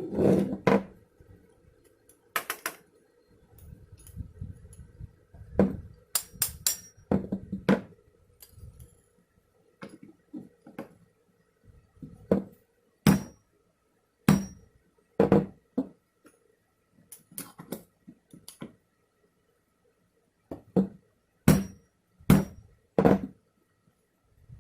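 A hand tool's head being tapped down onto its wooden handle with a small striking tool: about two dozen sharp, irregular taps in loose clusters, some with a brief metallic ring. A fan hums steadily underneath.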